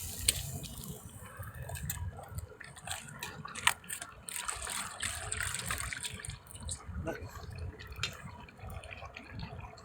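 Water dripping and splashing, with scattered sharp clicks and knocks.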